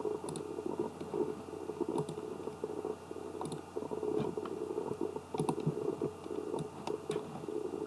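Scattered light clicks of a computer mouse and keyboard, irregular and well apart, over a faint steady electrical hum.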